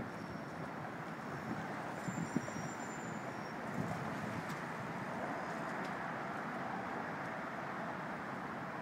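Steady road traffic noise from the Williamsburg Bridge roadway, with a few faint high squeaks about two to three and a half seconds in.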